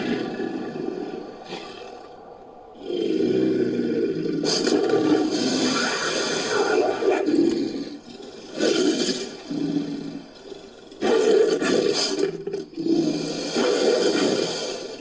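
Designed creature sound effect made of layered lion, jaguar, leopard and crocodilian recordings. It plays a series of deep roars and growls: one long roar from about three seconds in, then several shorter ones with brief gaps.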